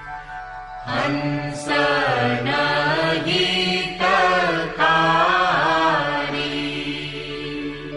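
Devotional guru vandana hymn: a single voice chants a melody over a steady drone, entering about a second in and dropping out around six seconds, leaving the drone alone.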